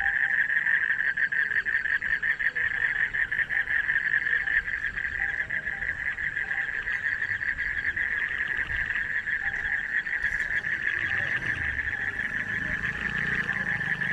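A chorus of frogs calling, a steady, rapid pulsing trill, with a low rumble coming in near the end.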